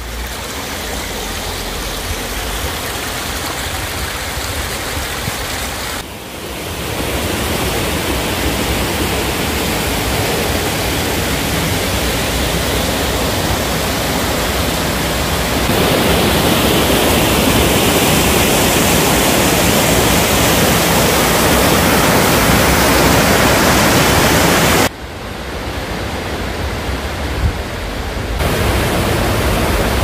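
Water of a small mountain waterfall and its rocky stream rushing and splashing in a steady noise, louder from about halfway through. The level drops abruptly twice, about six seconds in and near the end, then rises again.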